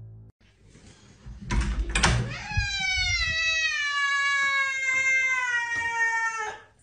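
Two knocks about half a second apart, then an alarmed cat lets out one long yowl of about four seconds, its pitch slowly falling.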